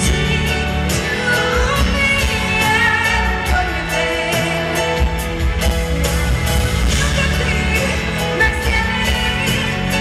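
A woman singing a pop ballad live into a handheld microphone, with amplified band accompaniment of sustained bass notes and steady drum hits.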